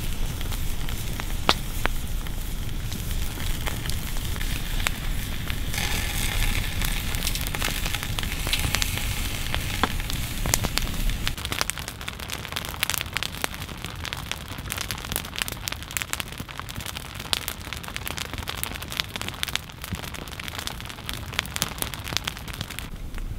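Open wood campfire burning high, crackling with frequent sharp pops over a low rumble. A hiss joins in for a few seconds around the middle.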